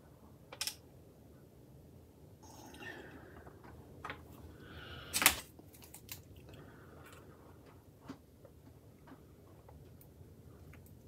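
Plastic spring clothes pegs being clipped onto a plastic model kit fuselage to clamp its glued halves: scattered light clicks and brief rubbing of plastic on plastic, with one sharper snap about five seconds in.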